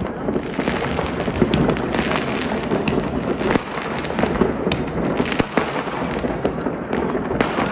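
Many fireworks and firecrackers going off at once, near and far: a constant crackle of bangs with sharper cracks standing out every so often.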